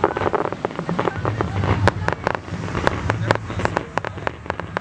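Fireworks going off in quick, irregular succession: many sharp pops and crackles over a steady low rumble.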